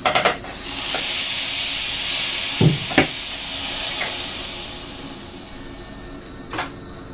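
Loud hiss of compressed air venting from a train's pneumatic system in the driver's cab. It starts with a few clicks and fades away over several seconds, with a double thump about two and a half seconds in and a single click near the end.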